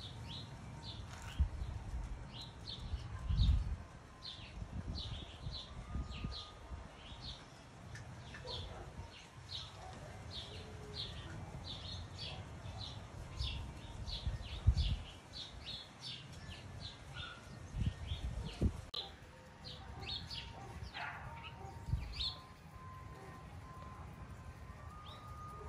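A bird chirping over and over, short high chirps about two a second, stopping about three quarters of the way through. Scattered low thumps and rumbles underneath.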